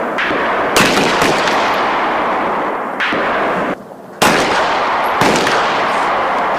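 Small-arms fire on a qualification range: about six sharp shots at uneven intervals, several in the first second and a half and more a few seconds later, each trailing off in a long echo.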